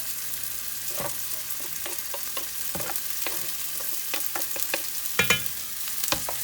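Onions, garlic and jalapeno frying in hot oil in a pan, a steady sizzle, with scattered taps and scrapes of a utensil stirring and a louder clatter about five seconds in.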